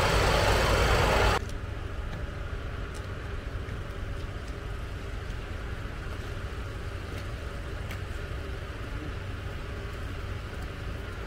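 Loud, steady idling of a parked fire engine's diesel engine close by, cut off abruptly about a second in, followed by a much quieter steady low hum of idling emergency vehicles.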